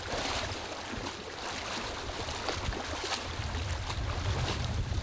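Several people wading through shallow water, their steps splashing and sloshing irregularly, under a steady low rumble of wind on the microphone.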